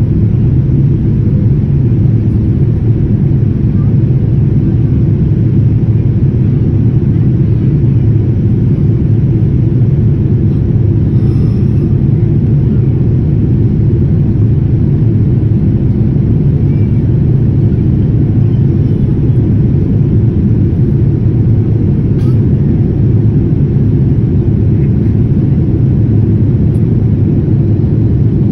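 Steady low rumble of a jet airliner's cabin in flight: engine and airflow noise heard inside the cabin, loud and unchanging.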